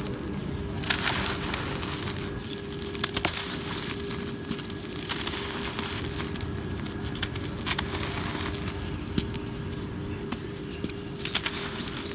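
Lumps of dry cement crumbling and crunching in the hands, with gritty powder pouring out and pattering down. Sharp little cracks come at irregular moments over a steady gritty hiss.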